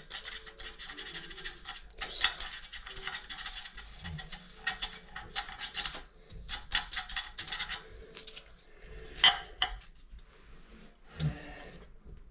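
Scratchy rubbing and scraping on a hard part for about six seconds, then scattered sharp clicks and clinks of small parts being handled.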